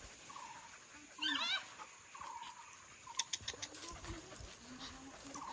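Birds calling in short repeated chirping phrases, with one louder call about a second in and a few light clicks around three seconds in.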